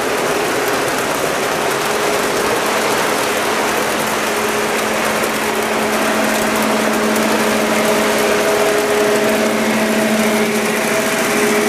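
O scale model freight train running fast, its cars' metal wheels rolling over the track in a steady rolling rumble, with a steady hum under it.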